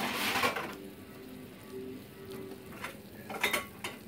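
Thickened Coca-Cola boiling hard in a stainless steel saucepan, a crackling, sizzling bubbling. It is louder at the start, with a few sharp pops about three and a half seconds in.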